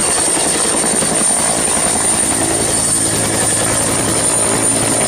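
Helicopter engine and rotor sound, running steadily at a constant level with a thin, high, unchanging whine over it.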